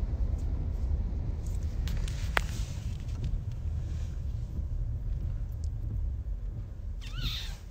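Low, steady rumble of a car's cabin on the move, with a single sharp click about two and a half seconds in and a brief squeak that glides up and down in pitch near the end.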